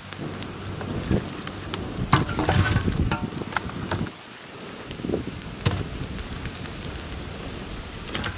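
Small wood fire crackling under a pile of dry sticks, with the knock and rattle of sticks being laid onto the pile several times.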